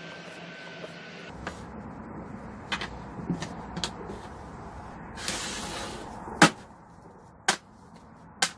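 Workshop handling sounds: a series of sharp knocks and clacks of hard parts being set down or handled, the loudest about six and a half seconds in. A short hiss comes about five seconds in.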